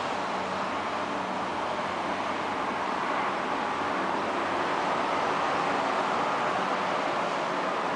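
Steady noise of road traffic, an even wash of car sound with a faint low hum, with no single vehicle standing out.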